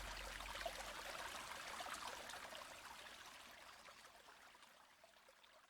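Trickling, stream-like water fading out gradually to silence, with a low hum dying away in the first moments.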